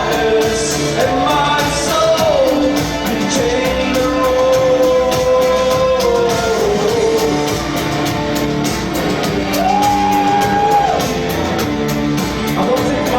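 Live band music with sung vocals over a steady beat, echoing in a large hall. The singer holds long notes, one lower from about three to six seconds in and one higher from about ten to eleven seconds in.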